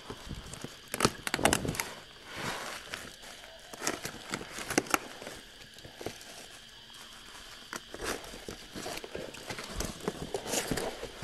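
A bubble-wrapped cardboard box being cut open with a box cutter and its flaps pulled back: irregular crinkling of plastic wrap and rustling, scraping cardboard, with sharp clicks and knocks scattered through.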